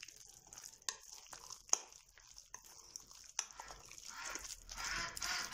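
A hand squeezing and kneading a wet, crumbly cheese-and-egg dough in a glass bowl: soft squelching with a few sharp clicks. The squelching gets busier near the end.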